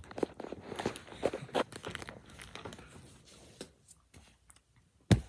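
Rustling and crackling handling noise close to a handheld phone's microphone, dense at first and then dying away, with one loud knock near the end.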